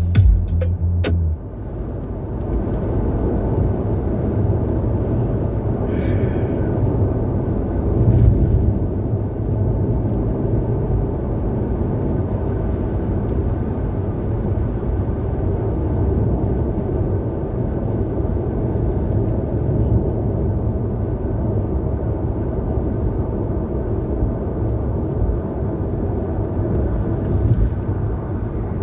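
A music outro with a heavy bass note cuts off about a second in, leaving the steady low rumble of a car driving on the road.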